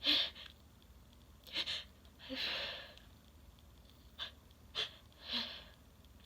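A person breathing in short, noisy breaths and sniffs, with a longer breath about two and a half seconds in.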